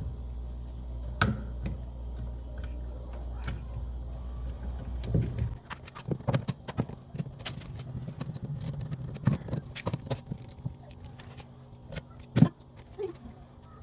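A steady low hum that cuts off about five and a half seconds in, with scattered clicks and knocks throughout and one sharp knock near the end.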